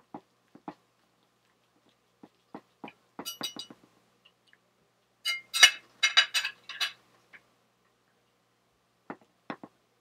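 Knife and fork cutting a steelhead trout fillet on a plate: scattered clicks and scrapes of the cutlery, with a loud cluster of ringing metal-on-plate clinks about five to seven seconds in.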